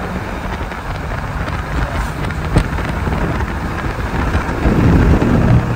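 Wind buffeting the microphone over the steady rumble of a moving vehicle's road noise, growing louder near the end.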